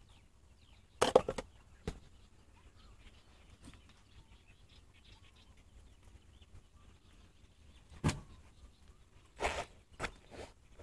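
A few short knocks and scrapes of gear being handled against a motorcycle's chrome rack, the loudest about a second in and a quick cluster near the end.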